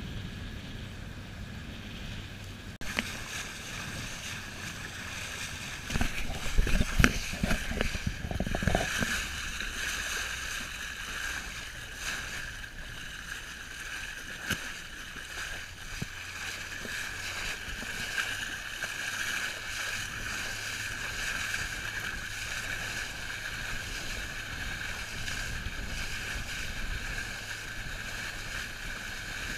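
Boat moving over open water: a steady hum under a wash of wind and water noise. Heavy low buffeting comes in for a few seconds about six seconds in.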